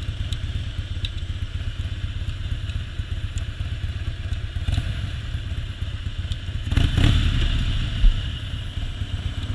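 2001 Harley-Davidson Softail's Twin Cam 88B V-twin idling low at a stoplight, its exhaust pulsing steadily. About two-thirds of the way through it swells louder for under a second, and a short low thump follows about a second later.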